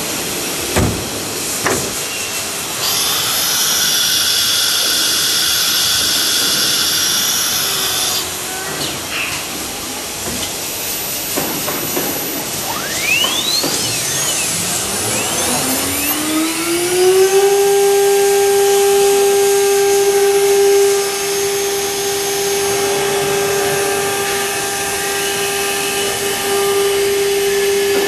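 CNC router with a disc-type automatic tool changer working through a tool change: a couple of sharp knocks and a high whine that stops about eight seconds in. Then the router spindle spins up with a rising whine and settles into a steady high-pitched whine as it routes the edge of a wooden cabinet-door panel.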